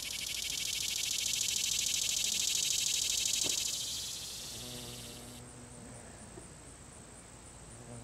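Male annual cicada singing, its timbals buckling hundreds of times a second to make a rapid, clicking buzz. The call swells over the first few seconds, then fades away about four to five seconds in.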